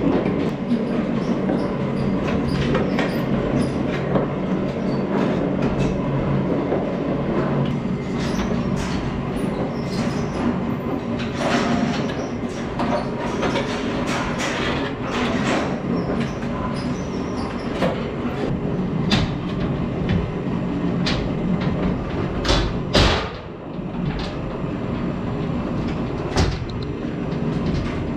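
Manure conveyor in the pit beneath the pig pens running with a steady mechanical rumble, overlaid with irregular clanks and knocks, one louder knock about 23 seconds in.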